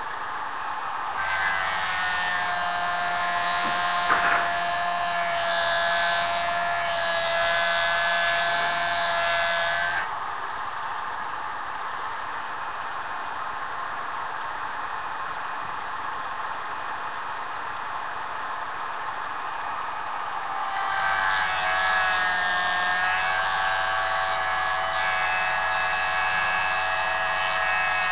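Jooltool sharpening machine running with an edge held against its spinning abrasive disc: a steady whine with a high grinding hiss. It comes in two runs of several seconds each, with a quieter stretch between. The sound drops suddenly at the end of the first run and builds back up for the second.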